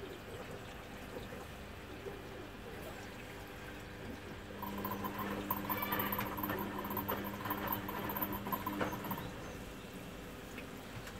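Beko front-loading washing machine with water trickling and sloshing inside. About four and a half seconds in, a steady electric hum from the machine comes on, lasts about four and a half seconds, and stops.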